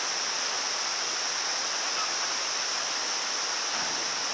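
Waterfall's falling water rushing steadily, an even hiss with no breaks.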